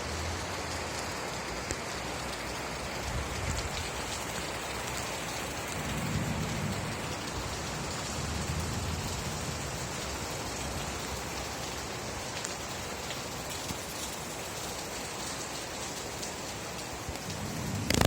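Steady rain falling, an even hiss of drops on surfaces, with a few low rumbles swelling under it and a sharp crack right at the end.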